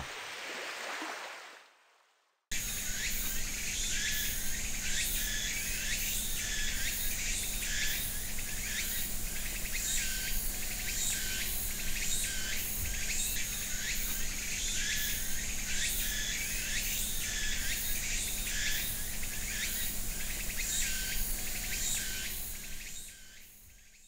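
Steady chorus of chirping insects with a high continuous whine and rapid repeated chirps, starting about two and a half seconds in and fading out near the end.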